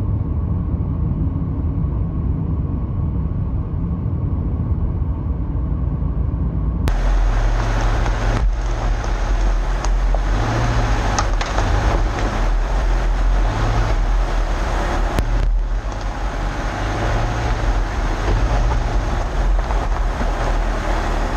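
Subaru Crosstrek on the move, with road and tyre noise heard from inside the cabin as a steady low rumble. About seven seconds in it changes to a louder, hissier tyre noise of driving on gravel.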